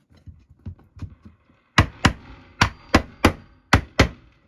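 Small hammer tapping wooden top bars down onto the glued side bars of Langstroth hive frames. A few light taps, then from about two seconds in roughly eight sharp wooden knocks, several in quick pairs, seating the tight-fitting bars.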